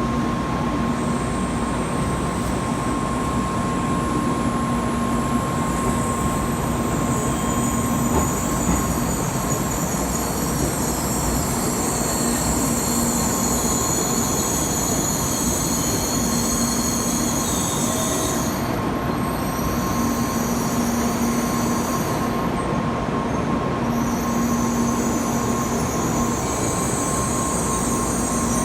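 Train running on the rails, a steady rumble with high-pitched wheel squeal that comes and goes, dropping out briefly twice in the second half.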